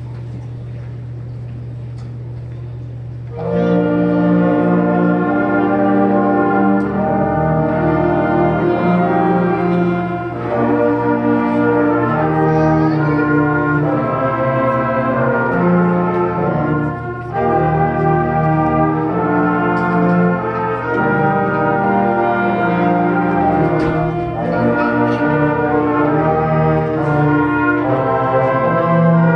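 School concert band of flutes, clarinets and brass playing held chords, starting about three and a half seconds in. A steady low hum runs underneath.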